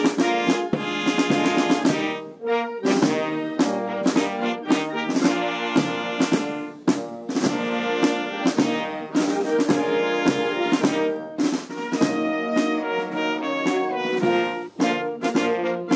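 Military brass band playing a national anthem, with a few sharp loud hits standing out from the music.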